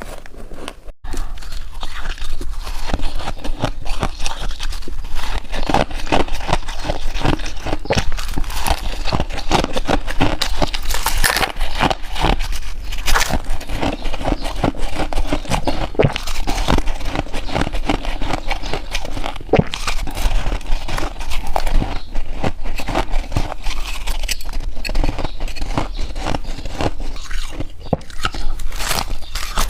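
White ice being bitten and chewed close to the microphone: a dense, irregular run of crisp crunches and crackles, with a short lull about a second in.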